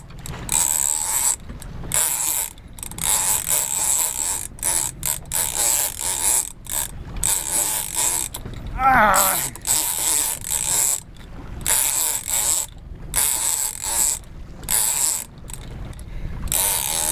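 Shimano Tiagra 30 big-game reel working under the pull of a hooked bluefin tuna, its drag maxed out: a loud mechanical ratcheting buzz that comes in repeated irregular surges with short pauses between them.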